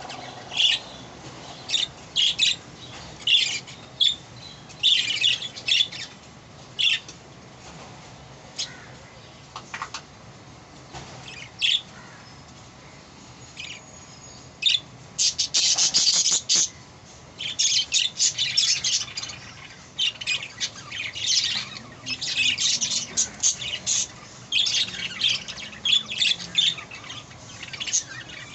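Budgerigars chirping and squawking in short, high-pitched bursts, scattered at first and coming thick and fast in the second half.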